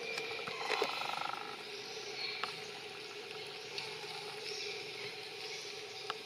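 Steady drone of forest insects, with a few soft clicks and rustles in the leaf litter and a short rattling call about a second in.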